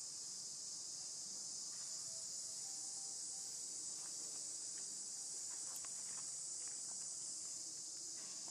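Steady high-pitched chorus of insects, unbroken throughout, with a few faint clicks around the middle.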